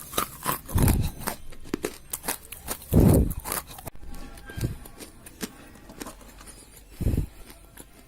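Dry rose clay crumbling, with a run of sharp crackles and three heavier crunches about a second, three seconds and seven seconds in.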